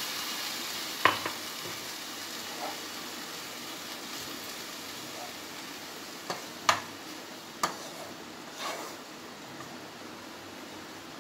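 Milk sizzling in a hot nonstick pan of roasted desiccated coconut as a wooden spatula stirs the mix, the sizzle fading slowly. Sharp knocks of the spatula on the pan stand out, the loudest about a second in and several more between six and eight seconds.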